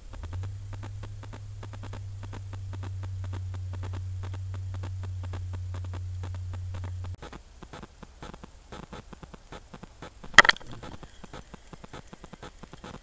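A steady low hum that cuts off suddenly about seven seconds in, over a constant faint crackle, with one sharp snap, the loudest sound, about ten seconds in.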